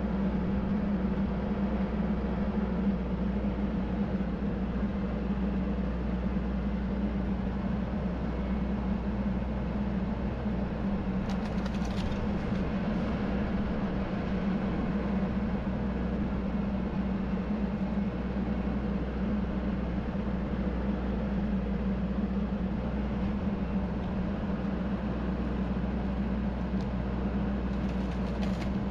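TYM T574 tractor's diesel engine running steadily under hydraulic load, an even hum with a low rumble. There is a brief crackle about twelve seconds in.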